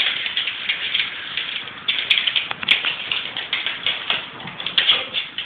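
Rapid, irregular clicking of two small dogs' claws on a wooden floor as they scramble about on their hind legs, thinning out near the end.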